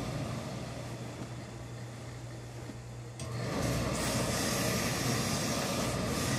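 Professional steam iron pressing a wool trouser leg. Over a steady low hum, a steady hiss of steam and iron on cloth starts sharply about three seconds in and holds.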